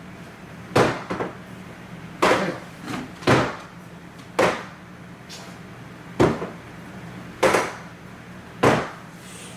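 Loud bangs struck one after another, about seven of them, unevenly spaced roughly a second apart, each with a short ring, made deliberately as loud wake-up noise.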